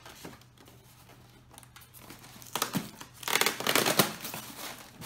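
Packaging handled by hand during an unboxing: plastic wrapping and the foam tray crinkling and rustling in a burst of about two seconds that starts about two and a half seconds in.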